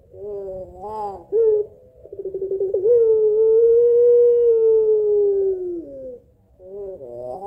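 Puter pelung dove, a long-voiced collared dove breed, giving its drawn-out 'kuwok' coo: a short rising note, then a long low coo that opens with a quick stutter, holds steady for about four seconds and falls away at the end. A new call begins near the end.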